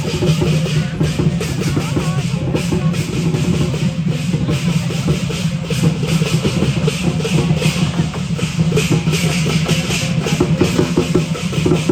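Lion dance drum beaten in fast, continuous strokes, with cymbals clashing along with it.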